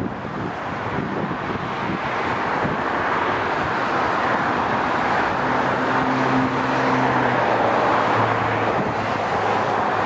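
Steady road traffic: cars passing with a constant hiss of tyres on asphalt and a low engine hum, growing a little louder over the first several seconds.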